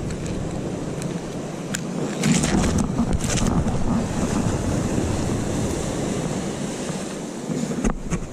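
Sea waves washing against shore rocks, with wind buffeting the microphone. A few light clicks and a short, louder rustling patch about two to three seconds in.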